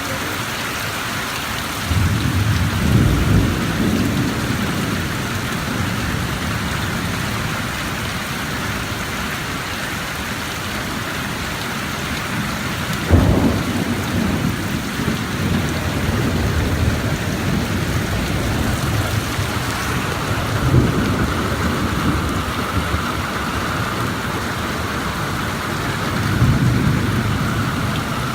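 Heavy rain falling steadily, with thunder rumbling low several times. One rumble about halfway through starts with a sharp crack.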